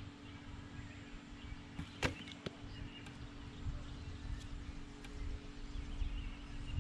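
A traditional bow being shot: a sharp string snap about two seconds in, then a fainter knock about half a second later as the arrow strikes the target.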